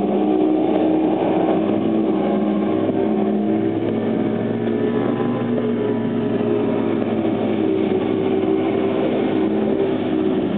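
Yamaha 200 VMAX two-stroke V6 outboard on a Triton TR20 bass boat running at high speed, a steady engine drone holding an even pitch.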